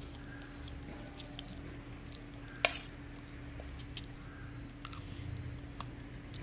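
A metal spoon clinking against a plate while someone eats, with faint chewing; a few sharp clinks, the loudest about two and a half seconds in. A low steady hum runs underneath.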